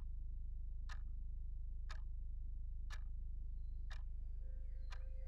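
A clock ticking about once a second over a steady low hum. A held tone comes in near the end.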